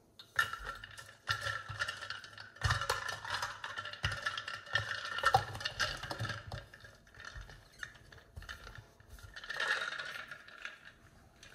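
Clinks, scrapes and rattles of an insulated steel drinks bottle being filled with iced coffee and its lid screwed on, densest in the first six seconds and again in a short burst near the end.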